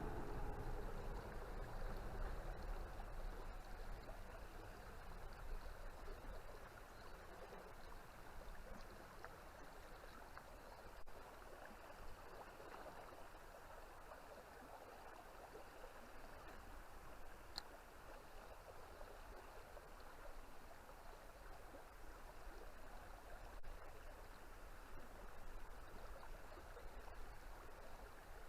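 River water flowing steadily, an even rushing hiss.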